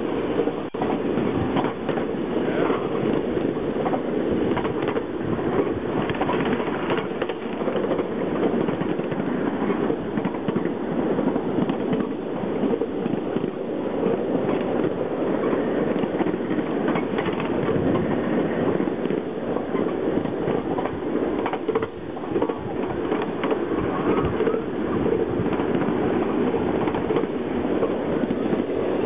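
Train running on rails: a steady rumble with constant rapid clicking of the wheels over the track.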